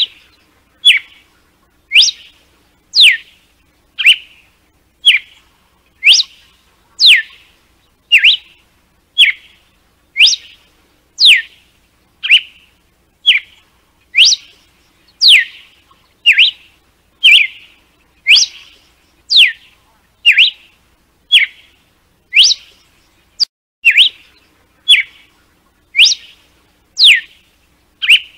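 Red-cowled cardinal (galo-de-campina) singing its 'açoite' (whip) song: loud, short whistled notes about one a second, alternating a quick downward-sweeping note with a shorter, lower one, repeated steadily.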